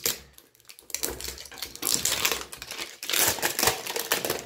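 Clear plastic shrink-wrap film being torn and peeled off a cardboard phone box, crinkling and crackling in the hands. It starts about a second in.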